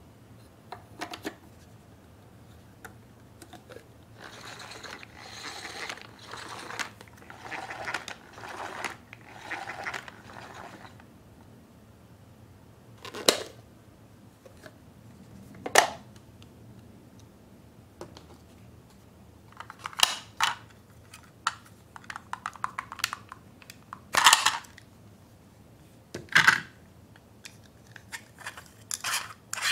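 Hard plastic parts of a hand-cranked egg pudding maker being handled and fitted together: several seconds of scraping and rubbing, then about five sharp plastic clicks and snaps, spaced a few seconds apart.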